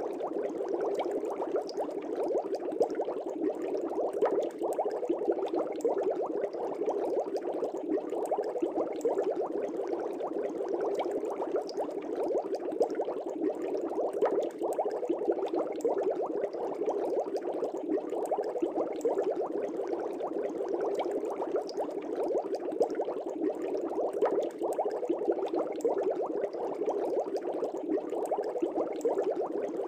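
Air bubbles rising in an aquarium fish tank: a steady, dense bubbling with many small pops and gurgles that keeps an even level throughout.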